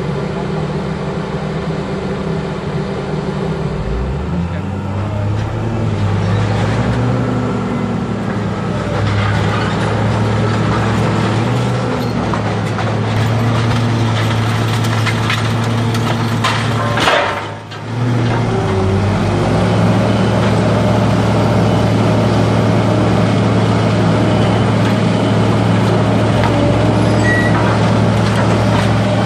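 Scrap shear baler's power unit running, a steady low mechanical drone whose note shifts and rises as the load changes. It dips briefly about two-thirds of the way through, then runs on steadily a little louder.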